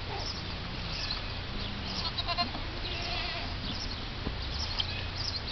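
Goats bleating faintly and briefly over a steady low background noise.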